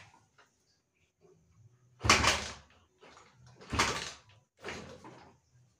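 Honda CB motorcycle engine with a replacement GL-series crankshaft being kick-started: three kicks, each a short burst as the engine turns over, without it catching and running.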